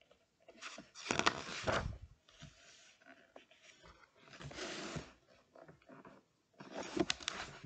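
Paper rustling and handling noises as a picture book's page is turned, in a few short, scratchy bursts.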